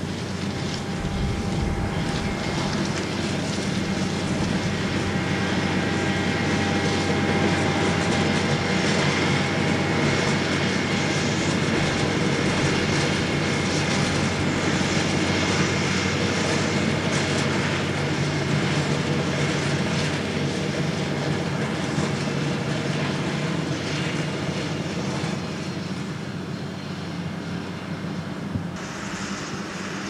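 Dewulf RA3060 self-propelled potato harvester, driven by its 310 hp Deutz six-cylinder diesel, working alongside a Massey Ferguson tractor. The diesel engines run steadily under a whine from the harvester's machinery, growing louder through the middle and easing off toward the end.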